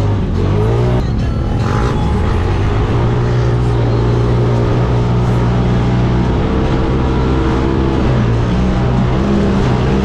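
Side-by-side UTV engine pulling hard at a steady high speed, its pitch rising a little in the first second and then holding, with wind rushing over the vehicle.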